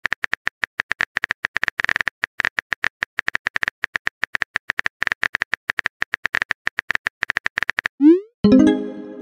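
A rapid, uneven string of short electronic blips at one high pitch, roughly ten a second, for about eight seconds. It breaks off for a quick rising glide and then a short burst of synth notes near the end.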